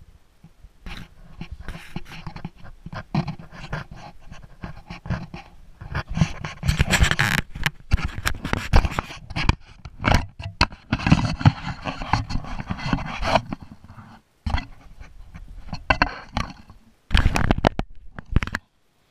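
Handheld action camera being handled close to its microphone: irregular rubbing, scraping and knocking noise, loudest through the middle and again near the end, cutting out abruptly a few times.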